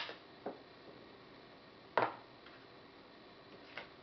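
Unboxing handling noises: a few light clicks and taps from a small plastic USB power adapter and cardboard packaging being handled, the loudest a sharp knock about two seconds in.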